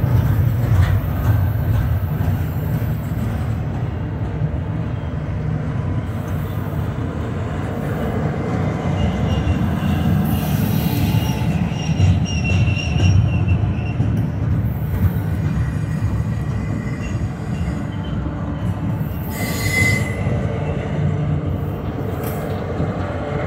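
Double-stack intermodal container train rolling by: a steady heavy rumble of wheels on rail. A faint high wheel squeal comes and goes around ten seconds in and again near twenty seconds.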